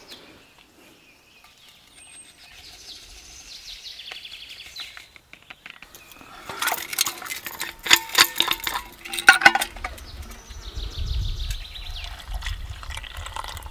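Metal clinks and rattles as a metal military canteen is handled. From about ten seconds in, water pours in a steady stream from the canteen into a metal canteen cup.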